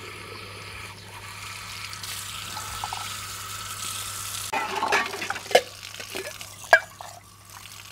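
Tap water running steadily from a wall faucet into a plastic bottle. About halfway through, steel cups and utensils being rinsed under the stream knock and clink, with two sharp metal clanks the loudest.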